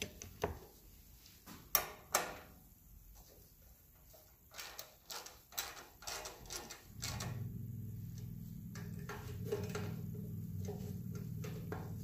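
Sharp clicks and knocks of tools and metal parts being handled on a thickness planer. About seven seconds in, a steady low hum starts and carries on under a few lighter clicks.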